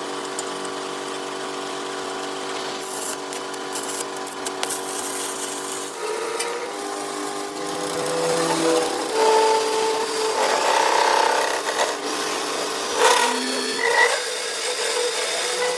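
Metal lathe running with a steady hum. From about six seconds in, a rougher cutting sound with short squeals as the tool works the part, loudest in the second half.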